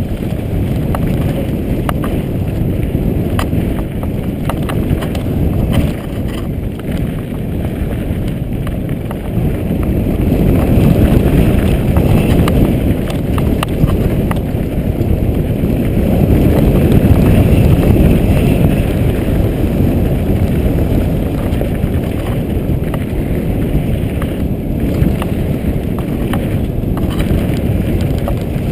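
Mountain bike rolling over rocky, gravelly singletrack, picked up by a camera mounted on the bike or rider. Wind rushes over the microphone, tyres crunch on stones and the bike rattles with small clicks. The noise swells louder twice, as speed picks up.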